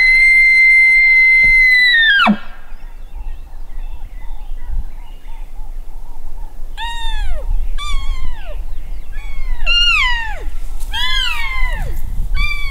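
Elk bugle blown on a call: a high whistled note held steady for about two seconds, then breaking down sharply in pitch. From about seven seconds in, five or six short elk cow mews follow, each falling in pitch.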